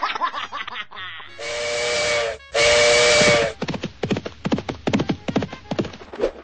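Cartoon sound effects: a cartoon bird's squeaky, chirping giggle, then two long, loud hissing blasts with a steady whistle-like tone, then a run of rapid fluttering clicks, about seven a second, as the bird flaps its wings.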